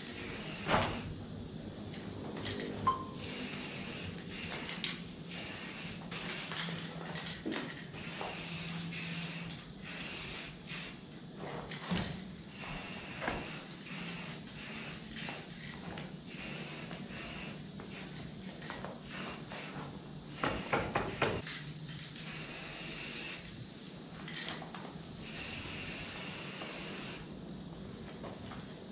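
Aerosol spray-paint can hissing in repeated short bursts as paint goes onto the wall, with scattered clicks and a quick run of rattles about two-thirds of the way through.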